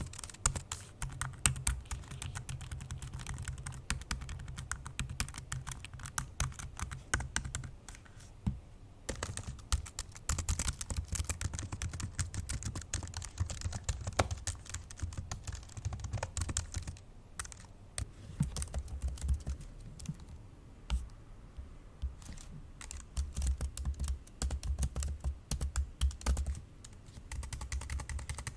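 Fast, hard typing on an old MacBook Pro laptop keyboard: dense runs of key clicks, with a few brief pauses.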